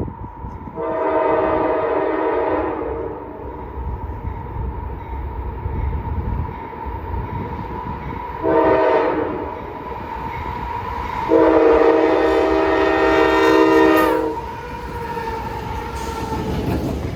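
Freight locomotive's multi-note air horn sounding three blasts: a long one of about two seconds, a short one about eight seconds in, then a long one of about three seconds, over the low rumble of the train.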